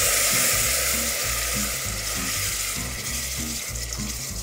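Cold water poured slowly into hot oil and browned flour in a stainless steel pot, sizzling and hissing as a wooden spoon stirs the roux; the sizzle fades gradually as the water cools the pot.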